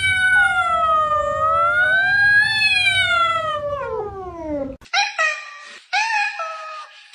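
A cat giving one long, drawn-out meow that wavers in pitch and then slides down low before breaking off, followed by a few short meows.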